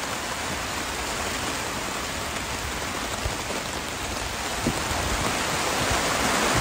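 Rain pouring down on a silnylon tarp shelter overhead, a steady patter that grows louder over the last couple of seconds.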